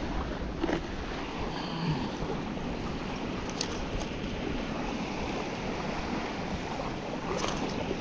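Sea waves washing on the shore with wind on the microphone, a steady rushing noise, with a few faint ticks around the middle and near the end.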